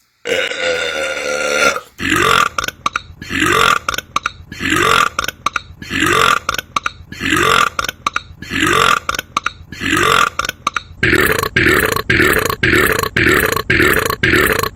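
A person burping: one long belch of nearly two seconds, then a string of short belches at an even rhythm, about one every three-quarters of a second, quickening to about three a second near the end.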